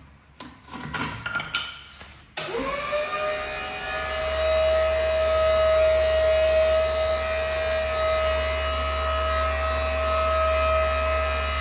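Knocks and rattles for about two seconds, then an electric hoist motor starts suddenly, its whine rising quickly to a steady pitch over a low hum. It runs steadily under the load of a motorcycle being lifted, and begins to wind down near the end.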